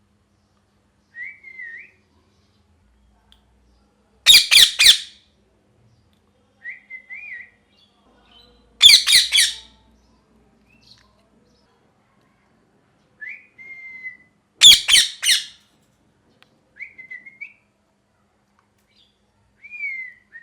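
Ringneck parrot calling: short whistled notes alternate with three loud, harsh bursts of screeching, each a quick run of three or four screeches.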